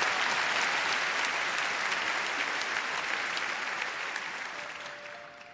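Large theatre audience applauding, the applause dying away near the end as the orchestra's first held notes come in.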